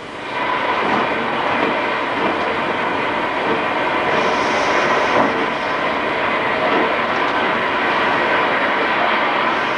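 Shower water spraying, a steady hiss that comes up about half a second in and holds.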